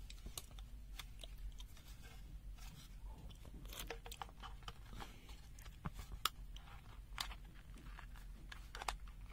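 Faint scattered clicks, taps and rustles of a handheld digital multimeter and its AAA batteries being handled, with a sharper click about six seconds in.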